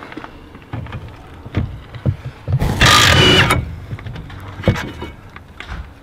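Cordless Ingersoll Rand impact wrench hammering for about a second as it breaks loose a stuck brake caliper bracket bolt, with a few short knocks before and after.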